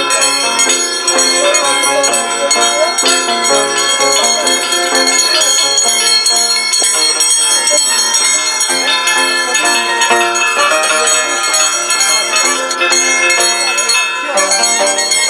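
Scissors dance (danza de tijeras) music: the dancers' steel scissor blades clinking in a steady, bell-like jingle over violin and harp playing.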